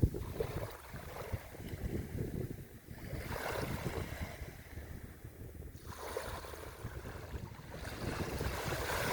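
Small waves washing onto a sandy beach, one surge of surf about three seconds in and another building near the end, with wind buffeting the microphone in a low rumble throughout.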